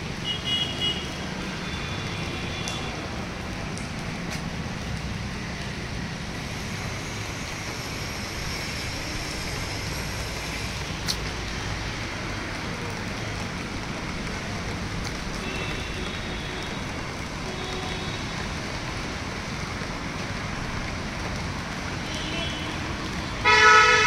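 Steady wash of rain and city street traffic, with car horns honking several times: briefly near the start, a few times later on, and one much louder honk just before the end.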